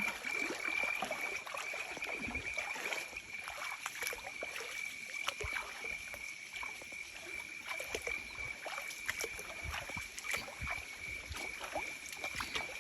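River water sloshing and splashing in irregular bursts, over a trickle. A steady high-pitched buzz, such as insects make, runs beneath it.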